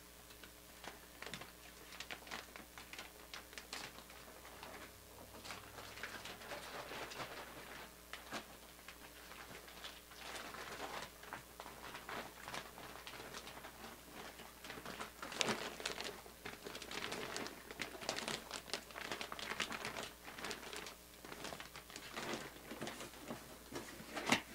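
Plastic bag crinkling and rustling on and off as a jersey is folded back into it, with scattered light clicks and taps of handling; busiest in the second half.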